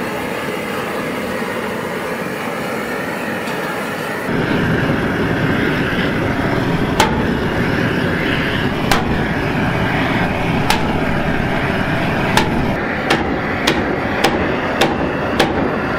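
Propane torch burning steadily against a steel keel plate, its noise stepping up about four seconds in, with about ten hammer blows on the hot steel from about seven seconds on, coming faster toward the end: the plate is being heated and beaten back down where ice pushed it up.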